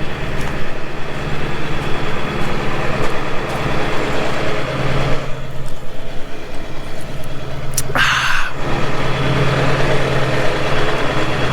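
Motor vehicle engines running steadily at idle, a low even hum, with a short burst of noise about eight seconds in.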